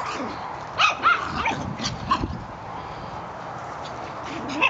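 Small dogs yipping and barking in short, high-pitched yelps as they play-chase. The yips come in a quick run over the first two seconds or so, ease off, then pick up again near the end.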